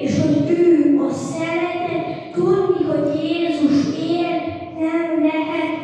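A child singing solo into a microphone, holding each note of a slow melody.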